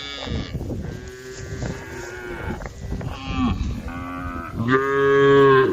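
Several cows mooing in a barn, their calls overlapping. A long, loud moo comes near the end.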